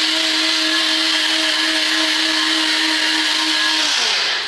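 NutriBullet personal blender running loud at full speed, blending coffee, coconut water and ice cubes: a steady motor whine over churning contents. Near the end the motor is released and winds down with a falling pitch.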